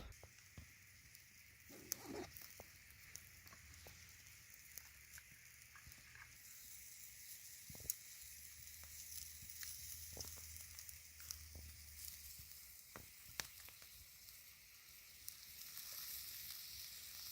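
Faint campfire crackling: scattered, irregular pops and snaps over a steady low hiss.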